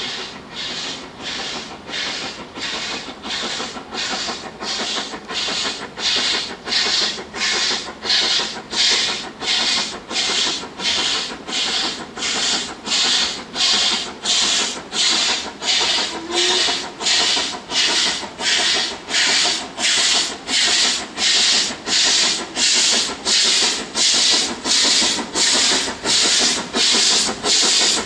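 LMS Stanier Class 8F two-cylinder 2-8-0 steam locomotive slogging up a bank under load, its exhaust beating slowly and evenly at about one and a half chuffs a second and growing louder as it approaches. The uploader thought the engine sounded poorly on this climb.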